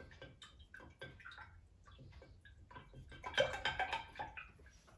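A wooden stick stirring baking soda into water in a glass container, tapping and clinking against the glass as the water swishes. The taps come quicker and loudest a little past three seconds in.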